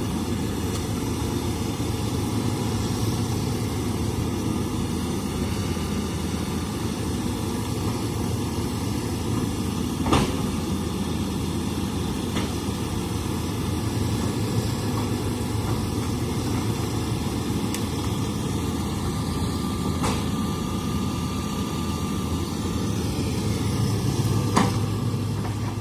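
Hitachi excavator's diesel engine running steadily, with a few sharp knocks: one about ten seconds in, others later, and one of the loudest near the end.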